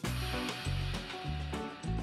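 Background music with a steady beat and a pulsing bass line.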